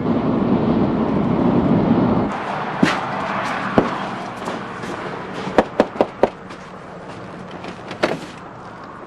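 Road noise of a car driving, which cuts off suddenly about two seconds in. Then comes a scatter of sharp knocks and clicks, including a quick run of four, typical of car doors and latches.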